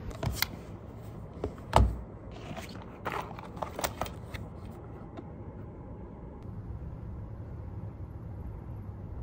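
Things being handled on a desk: a few clicks and knocks in the first four seconds, the loudest a dull thump just under two seconds in, then a steady low room hum.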